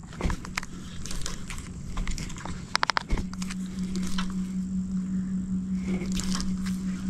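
A steady low motor hum, stronger from about three seconds in, with a quick run of clicks just before it.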